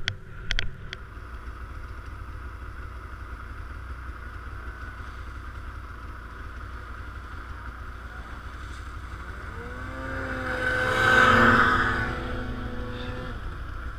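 Snowmobile engine running steadily, with a few sharp clicks just after the start. About ten seconds in the engine note rises and swells loudly, then eases off near the end.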